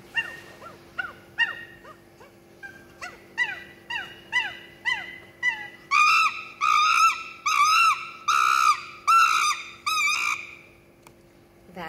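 Recorded monkey calls: a run of short rising-and-falling calls that speed up and grow louder, breaking into loud, high calls about halfway through and stopping about a second before the end.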